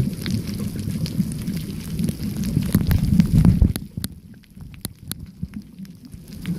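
Muffled underwater sound recorded through a camera housing: a low rumble of moving water with scattered sharp clicks. It drops away about four seconds in and returns near the end.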